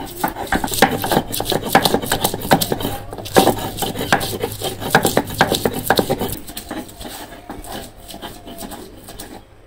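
Garlic being ground to a wet paste by hand on a flat grinding stone (shil-pata): the stone roller is scraped back and forth in quick, rapid strokes that stop about six seconds in.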